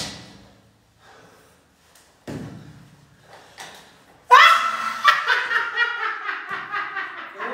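A few soft knocks, then a sudden loud burst of laughter about four seconds in, a rapid run of "ha-ha" pulses that starts high and falls, going on to the end.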